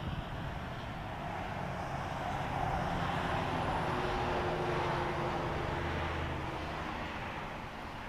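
2004 Volvo excavator's diesel engine idling steadily. A broader rushing noise swells from about two seconds in and fades again by about seven seconds.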